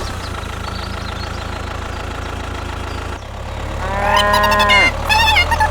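A small engine running steadily, with a cow mooing loudly about four seconds in: one long call that sags in pitch at the end, followed by a shorter, wavering call.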